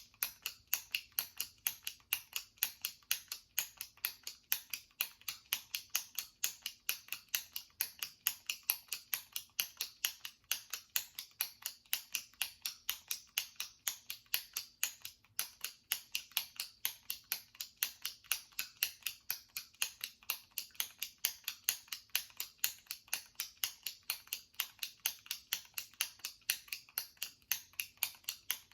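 Jumbo retractable pen being clicked over and over by pressing its top button, a steady rhythm of sharp plastic clicks, several a second.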